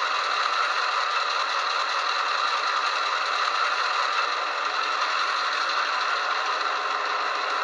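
HO scale EMD SD7 model's sound decoder playing its diesel engine sound, running steadily in drive hold, through a tiny onboard speaker with almost no bass.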